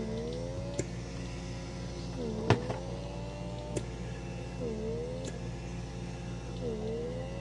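Handheld pore vacuum's small suction motor whining, its pitch dipping and climbing back about four times, with a few sharp clicks, the loudest about two and a half seconds in.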